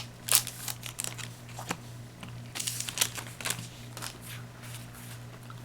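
Yu-Gi-Oh! trading cards from a freshly opened booster pack being slid and flipped one by one, making light paper rustles and soft ticks, with a low steady hum underneath.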